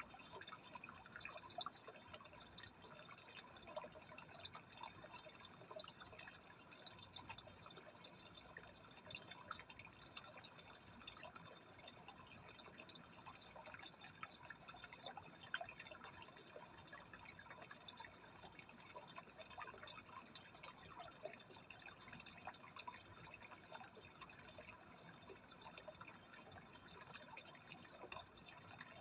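Faint, steady trickling and bubbling of water in a freshwater aquarium, a continuous patter of tiny drips and pops.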